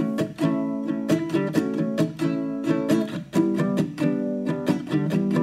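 Background music: a guitar strumming chords in a steady rhythm.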